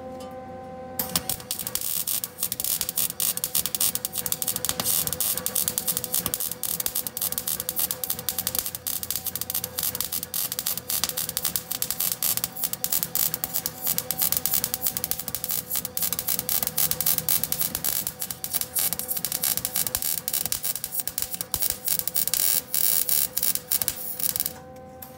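MIG welder arc crackling steadily as a bead is run around a steel exhaust pipe joint, starting about a second in and stopping just before the end. A steady hum runs underneath.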